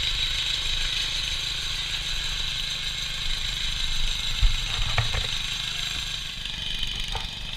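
Small petrol engine of a Honda tracked power carrier running steadily with a rapid low putter, its tracks and frame rattling mechanically. Two faint clicks come about five and seven seconds in.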